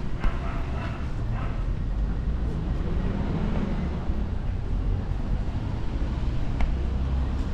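City street traffic: passing cars running with a steady low rumble.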